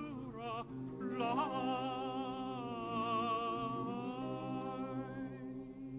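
A man singing a long held note with a wavering vibrato over instrumental accompaniment. The note swells about a second in and fades near the end.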